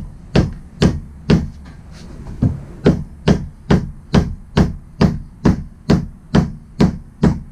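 Mallet blows on the top of a new wooden axe handle, driving a double-bit axe head down to seat it on the handle. Sharp, evenly spaced strikes about two a second, with a short pause about one and a half seconds in.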